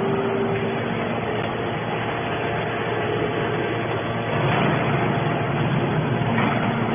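Hydraulic aluminum can baler running: steady machine noise with a faint hum, getting a little louder about four and a half seconds in.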